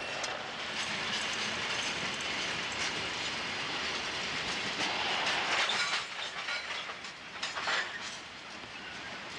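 Freight train cars rolling past, a steady rumble and rush with wheels clicking over the rail joints, loudest just past the middle.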